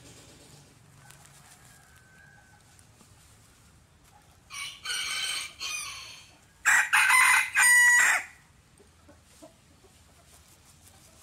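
Rooster crowing twice around the middle, the second crow louder.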